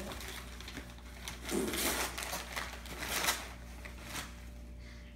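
Packing tape tearing and a cardboard shoebox and wrapping paper rustling as the taped box is pulled open. It comes in several uneven noisy bursts, the loudest about two seconds in and again near three seconds.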